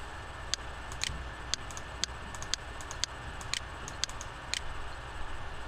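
Even, regular ticking at about two ticks a second, with a few fainter irregular clicks between, over a steady low background hiss.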